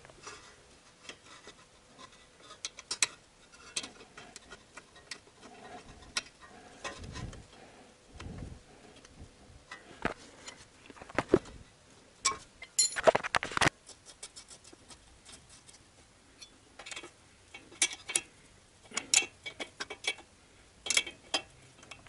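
A 12 mm wrench turning 8 mm bolts on the brake hose fitting, with scattered small metallic clicks and clinks and a louder burst of tool clatter about 13 seconds in.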